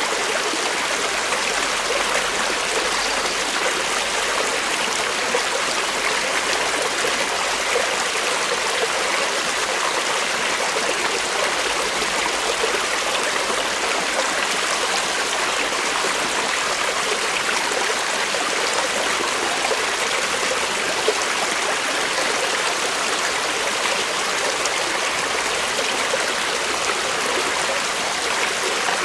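Creek water flowing over rocks: a steady rushing and babbling.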